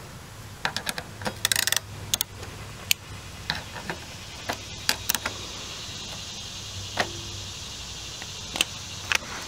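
Metal clicks and clinks of a socket wrench working the 8 mm lock nut on a mini bike's disc brake caliper as it is tightened after the pad adjustment, with a quick run of clicks about a second and a half in. A few more clicks come near the end.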